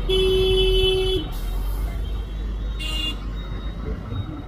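A vehicle horn honking in road traffic: one steady honk of about a second near the start, then a short beep about three seconds in, over the steady low rumble of the ride and the traffic.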